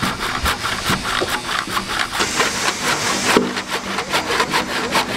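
Handsaw cutting through a thick keel timber by hand in fast, even back-and-forth strokes, finishing a joint cut in the corner a circular saw could not reach.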